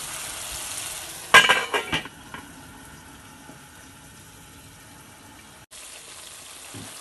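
Chicken pieces sizzling in a stainless steel pot. About a second in, a metal pot lid clatters and rings as it is set on, and the sizzling goes on more quietly under the lid.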